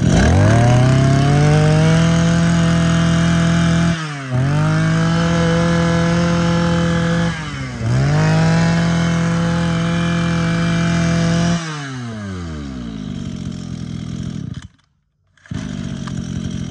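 Small two-stroke engine of a Mitsubishi TL231 23cc brush cutter, revved up to high speed and held there. The throttle is eased off briefly twice and opened again. About twelve seconds in it is released and the engine settles to idle. Near the end the sound cuts out for under a second and comes back idling.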